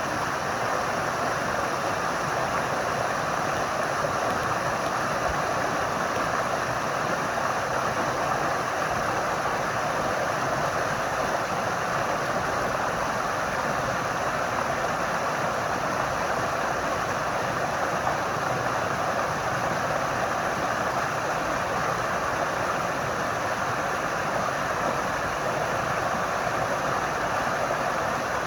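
Running water making a steady, unbroken rushing sound with no single splashes standing out.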